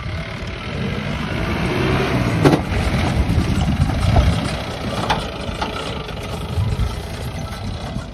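Mahindra Bolero SUV's diesel engine running as the vehicle drives past over rough, stony ground, with a few knocks. The sound grows louder as it passes close and fades as it drives away.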